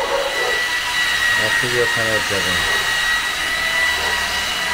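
Electric rotary car polisher with a round buffing pad running at a steady speed against car paint, a steady high-pitched motor whine, while it buffs on a Teflon polish coat.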